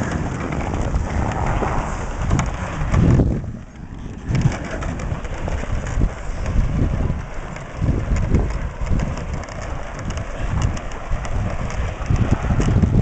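Footsteps crunching through snow behind a horse-drawn cart on rubber tyres, with uneven low thumps about twice a second and wind rumble on the microphone.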